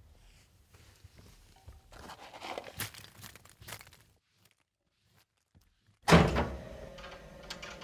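Footsteps crunching spilled popcorn on a carpeted floor, a dense crackle of small sharp cracks. About six seconds in comes a sudden loud thud that rings and slowly fades.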